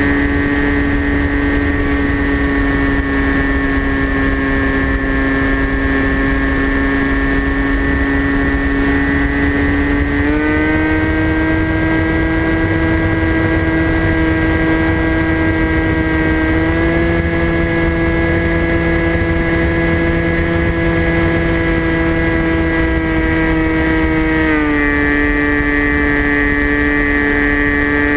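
TBS Caipirinha flying wing's electric pusher motor and propeller, heard from the onboard camera, whining steadily in flight with wind rumbling on the microphone. The pitch steps up about a third of the way in and again a little past halfway, then drops back near the end as the throttle is eased.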